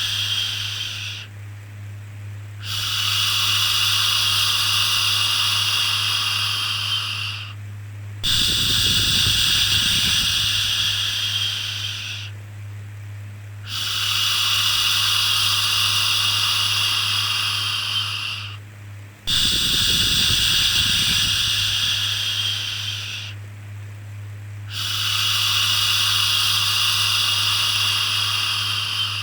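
Repeated long 'shhh' shushing sounds for soothing a baby, each lasting about four to five seconds with short breaks between them, over a steady low hum.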